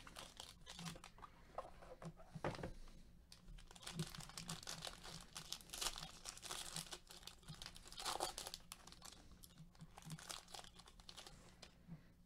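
Foil wrapper of a trading-card pack crinkling and tearing as gloved hands rip it open, an irregular run of quiet crackles.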